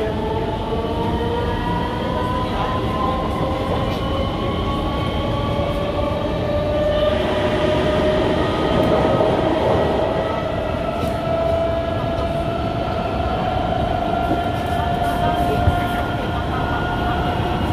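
Kawasaki Heavy Industries C151 metro train's traction motors whining from inside the motor car, the pitch climbing slowly and steadily as the train accelerates, over the rumble of wheels on track.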